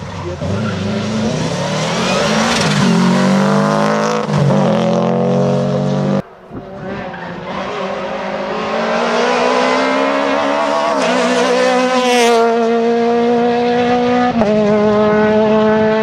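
Two rally cars at full throttle on a tarmac stage. First a classic rally saloon powers out of a corner, its engine pitch rising through two upshifts before the sound cuts off suddenly at about six seconds. Then a Peugeot 208 rally car accelerates hard, its engine climbing in pitch with gear changes at about eleven and fourteen seconds as it drives away.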